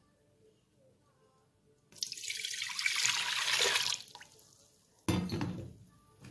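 Water poured into the empty inner pot of an electric multi-cooker, splashing for about two seconds. About a second after the pour stops there is a sudden knock that fades quickly.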